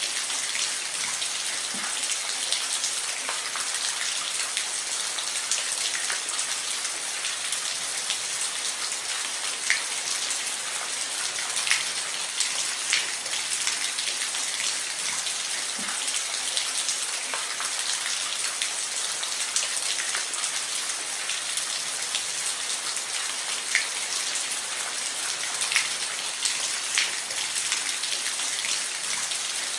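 Steady rain falling on a roof: an even hiss with individual drops ticking through it.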